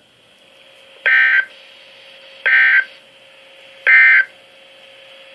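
Emergency Alert System end-of-message code: three short, identical bursts of buzzy, warbling SAME digital data tones, each about a third of a second long and a little over a second apart, signalling the end of the warning broadcast. A faint steady hum and hiss lies underneath.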